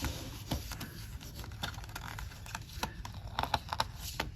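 Sheets of a decorative paper pack being handled: soft rustles and scattered light taps, with a cluster of them a little past three seconds in.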